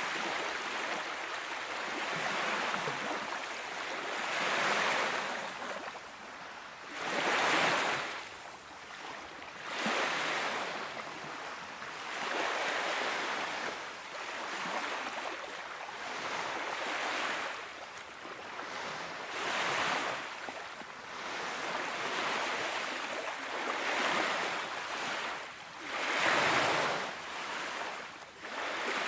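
Small sea waves washing onto a beach, a surge of rushing water swelling and fading about every two to three seconds.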